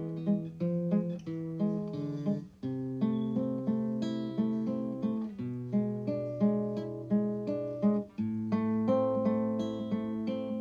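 Background music of plucked acoustic guitar in a steady, repeating rhythm.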